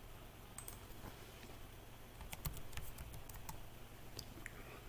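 Faint keystrokes and clicks on a computer keyboard, scattered and then coming in a quick run in the middle, as a search word is typed in, over a low steady hum.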